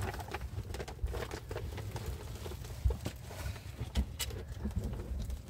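Scattered light taps and knocks at an uneven pace over a steady low rumble.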